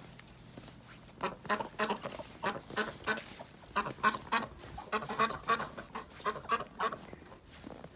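White domestic ducks quacking, a rapid run of short calls about three or four a second that starts about a second in.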